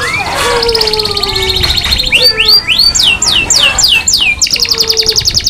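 Canary singing, a masteran bird tutored on long-tailed shrike (cendet) song. It runs fast trills, then a string of sharp whistles sliding down in pitch, then a rapid even trill of many notes a second near the end.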